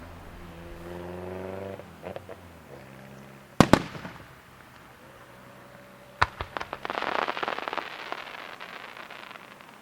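Aerial fireworks shells bursting: a sharp double bang a little over a third of the way in. A second bang comes at about six seconds, followed by a quick run of pops and a couple of seconds of crackling hiss from crackling stars.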